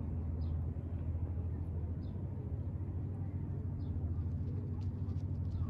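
Steady low outdoor rumble, with a faint short high chirp about every second and a half and a few sharp clicks near the end.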